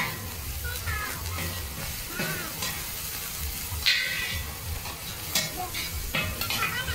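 Hoi tod (mussels and egg) sizzling on a large flat griddle while two metal spatulas scrape and clack across the hot surface, chopping and turning the mixture. The loudest scrape comes about four seconds in.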